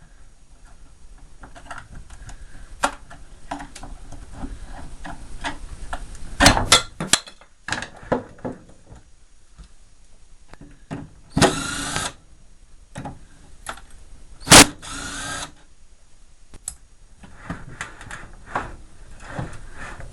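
Cordless power drill run in two short bursts, the motor spinning up each time, amid scattered clicks and knocks of plastic fridge parts being handled. A single sharp knock just before the second burst is the loudest sound.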